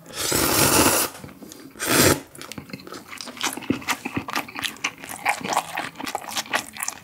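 Cold Paldo Bibimmen noodles slurped into the mouth with a piece of grilled pork belly: one long slurp lasting about a second, a shorter one about two seconds in, then steady close chewing with wet clicks and smacks.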